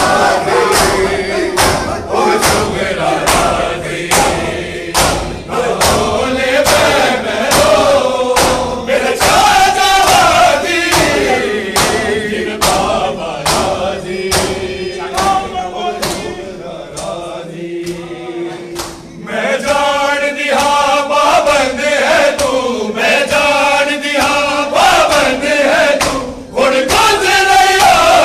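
A crowd of men chanting a noha together, with the slap of many hands beating their chests (matam) in a steady rhythm.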